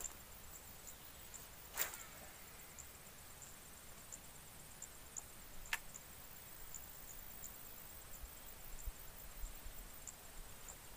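Quiet outdoor ambience with a faint, high, evenly spaced ticking and two short sharp clicks, about two seconds and six seconds in.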